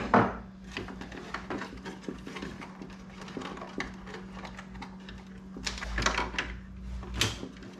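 Small plastic clicks and knocks of hands working at a table saw's switch and reset-button housing, handling the parts and their plug-in wire connectors. There is a sharper click right at the start and busier rattling around six and seven seconds in.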